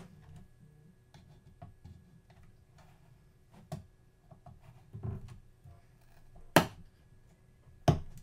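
Scattered small clicks and taps of a prying tool working around the snapped-in plastic housing of a Matterport Pro 3 camera, with two louder sharp clicks near the end.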